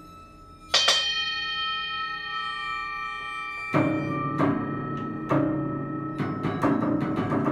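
Experimental chamber music of struck, ringing prepared-piano notes: one loud strike under a second in that rings on, then a run of repeated struck notes, about one or two a second, from about halfway.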